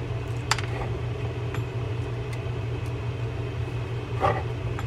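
A few light clicks and a scrape from screws and the graphite body of a Penn GS 545 spinning reel being handled as its side-plate screws are started, over a steady low background hum.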